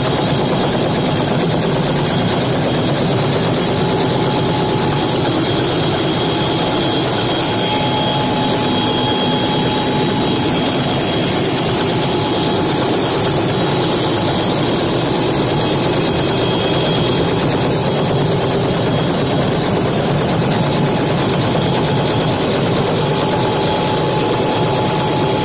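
Robinson R66 helicopter's Rolls-Royce RR300 turbine engine running on the ground: a loud, steady rush with a high, steady whine.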